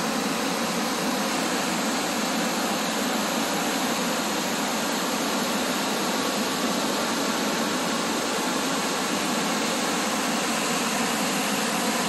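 River rapids rushing steadily over rock ledges at the top of a waterfall chute.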